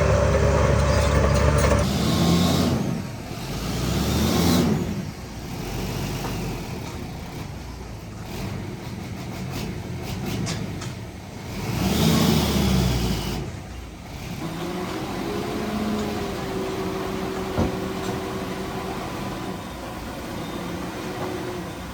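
Heavy diesel earthmoving machinery at work. The engine runs loud at first, then revs up and back down several times, and later settles into a steadier drone with a held whine.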